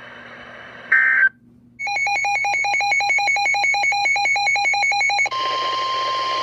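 NOAA Weather Radio alert tones between two broadcast warnings. About a second in there is a short loud beep. After a brief gap comes a fast, evenly pulsing electronic tone pattern for about three and a half seconds. Near the end it gives way to the steady single-pitch 1050 Hz warning alarm tone that signals a new warning.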